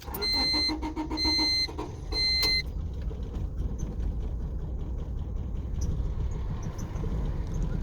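A 1996 Honda Civic's engine is cranked by the starter and turns over steadily without firing, a hot-restart fault. The car's warning chime beeps three times in the first couple of seconds.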